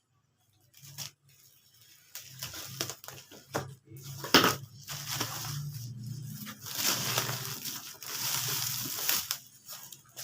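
Cardboard parcel being opened by hand: rustling, scraping and crinkling of the packaging, with a sharp snap about four seconds in and busier, louder crinkling through the second half.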